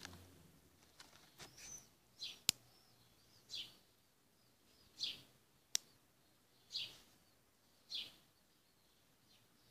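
Two sharp, loud snaps of a pistol shrimp (snapping shrimp) closing its snapping claw, the first about two and a half seconds in and the second about three seconds later. Between them a bird chirps briefly every second or so.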